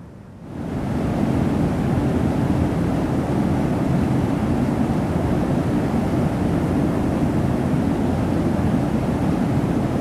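Senpiro Falls on Yakushima, a waterfall pouring down a bare rock face into a pool, heard as a steady rush of falling water. It fades in quickly about half a second in and then holds level.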